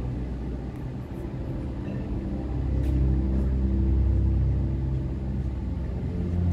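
Deep ambient drone: low held tones rumbling and shifting slowly in pitch, swelling louder about three seconds in.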